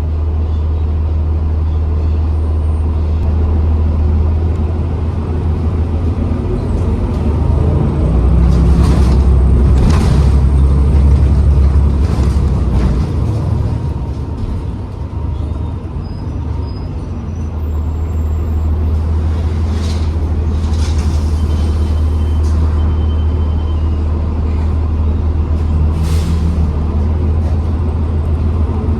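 Diesel-electric hybrid transit bus (2012 New Flyer XDE40) running with a steady low drone, which eases off about halfway through and then picks up again. Several short air hisses come through, around a third of the way in, about two-thirds of the way in and near the end.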